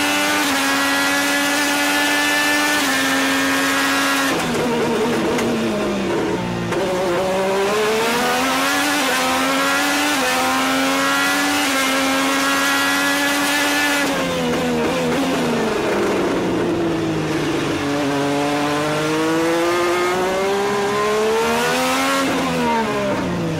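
IndyCar's Honda 2.2-litre twin-turbo V6 heard from the cockpit at racing speed: held high at full throttle, then falling in pitch through downshifts under braking about four seconds in and again about fourteen seconds in, each time climbing back up as the car accelerates out of the corner. Its pitch drops once more near the end.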